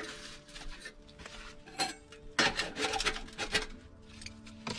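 A series of sharp metal clinks and knocks from the steel door of a small portable wood stove being worked with a wooden stick. The loudest comes about two and a half seconds in.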